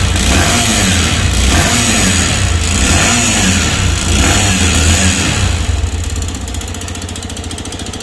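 TVS Sport BS6 single-cylinder four-stroke motorcycle engine running with an abnormal mechanical noise. It is held at higher revs, then drops back to a quieter, even idle about six seconds in. The mechanic takes the noise for a burnt clutch plate and a seizing piston and worn piston-cylinder kit.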